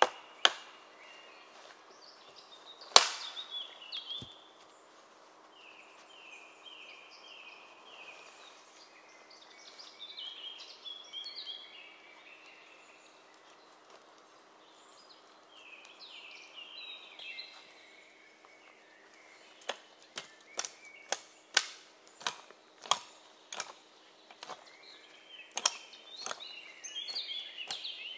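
Gränsfors Bruk Wildlife Hatchet (Vildmarksyxa) chopping wood: one hard strike about three seconds in, then a run of about ten sharp chops, roughly two a second, near the end. Birds sing in the pauses between the strikes.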